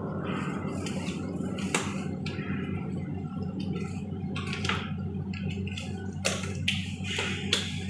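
Disposable gloves being pulled on and tugged over the cuffs of a plastic gown: rubbery stretching and rustling with several sharp snaps, over a steady low hum.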